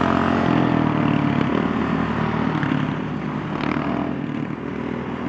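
Small off-road vehicle engines running, a steady buzzing drone that drops a little in level near the end.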